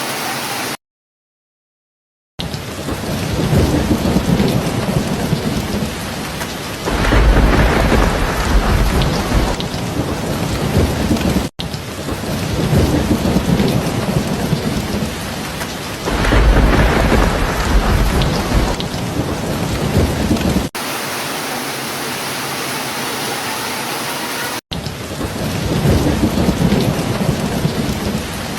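Steady heavy rain with thunder rumbling in three times. The sound drops out completely for about a second and a half near the start and cuts abruptly several times, where clips of the recording are joined.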